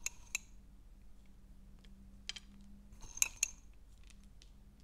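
Fingers taking pine nuts from a small glass jar and sprinkling them onto a salad: small clicks and light tinks of nuts against glass, in a few short clusters, the loudest group about three seconds in.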